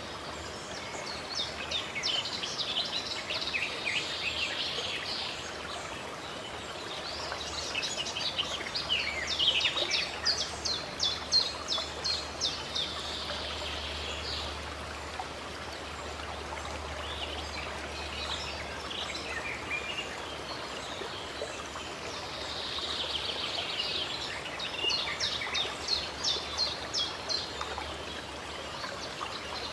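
Steady running water with songbirds singing over it in three spells, each a quick run of rapidly repeated chirps, loudest about ten seconds in.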